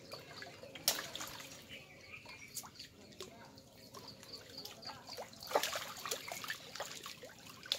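Shallow water splashing, trickling and dripping as fish are handled and flap in a fishing net, with scattered sharp slaps. The splashing grows louder and busier about five and a half seconds in.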